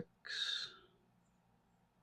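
A short breathy exhale, about half a second long, shortly after the start, then only faint room tone.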